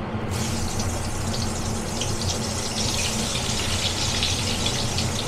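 Slices of eggplant frying in hot oil in a kadai: a steady, crackling sizzle starting just after the beginning, with a low hum underneath.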